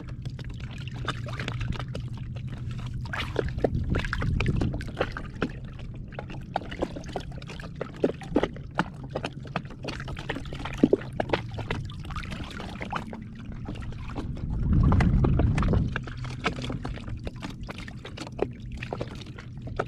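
Water splashing and trickling around a redfish held by hand at the surface and worked back and forth to revive it after unhooking, over a low steady hum. A louder low rush comes twice, about four and fifteen seconds in.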